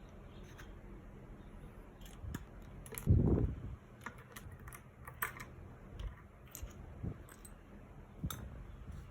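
Mechanical keyboard keys with cat-claw keycaps pressed one at a time, giving scattered, irregular clicks. A louder, low thump comes about 3 s in.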